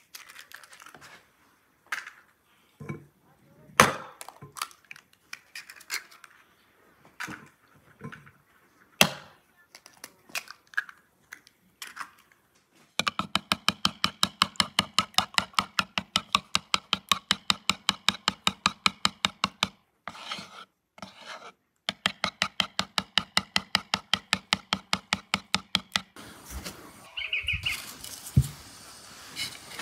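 Eggs tapped against a wooden bowl and broken open, a scatter of separate knocks and clicks. About halfway through, a metal spoon starts beating the eggs in the wooden bowl: rapid, even strokes, about six a second, with a short break partway.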